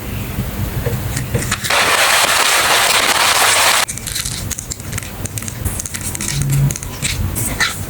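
Paper and plastic packaging being handled and crinkled, with scattered crackles and clicks and, from about two seconds in, a louder steady rush that lasts about two seconds and stops abruptly.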